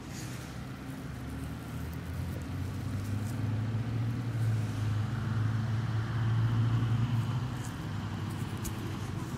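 A motor vehicle's engine drone passing by, growing louder to a peak about two-thirds of the way through and then fading a little, with a few faint clicks near the end.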